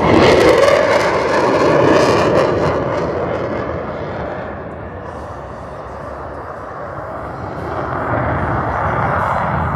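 Aircraft flying low past the crowd. The engine noise swells suddenly at the start, fades over several seconds, then builds again near the end as it returns.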